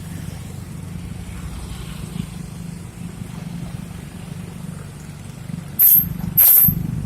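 Vehicle engine running steadily in a low rumble, then two short, loud blasts about two-thirds of a second apart near the end.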